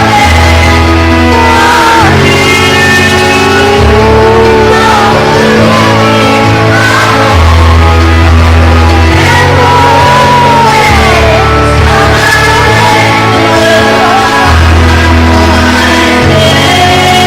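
A voice singing a wavering melody over loud backing music, whose bass notes change every one to two seconds.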